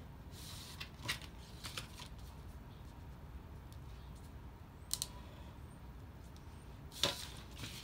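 Marker and clear plastic ruler handled on paper over a wooden table: a few sharp taps and clicks and short scratchy strokes, the loudest click near the end followed by a brief scratch.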